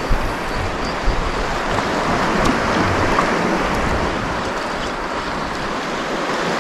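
Steady rush of wind on the microphone and open water, with a couple of small knocks near the start.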